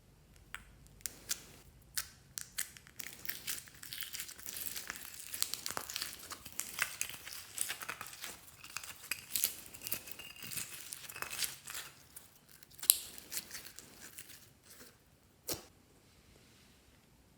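Slime being squeezed and worked by hand, giving a dense run of crackling, popping clicks through the middle, then a few single sharper pops near the end, one clearly the loudest.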